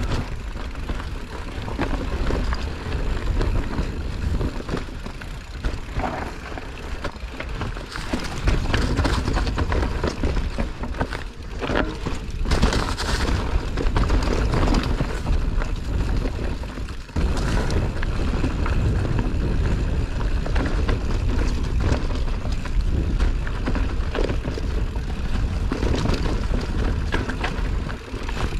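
Mountain bike riding down a dirt trail, heard from a camera on the rider or bike: a constant deep rumble of wind and rolling tyres with frequent clattering knocks as the bike rattles over bumps.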